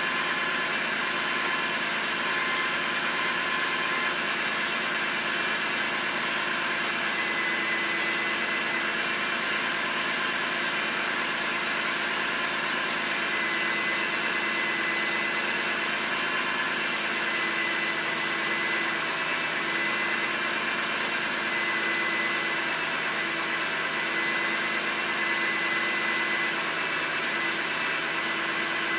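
BMW M3 straight-six engine idling steadily, with its VANOS freshly rebuilt with anti-rattle seals and solenoids and a reinforced hub. It is an even running hiss with a few steady held tones and no change in speed.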